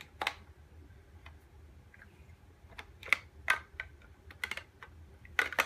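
Large plastic Mega Bloks building blocks clicking and clacking as they are pressed onto a stack and handled: a series of short, sharp, irregular clicks, bunching together about three seconds in and again near the end.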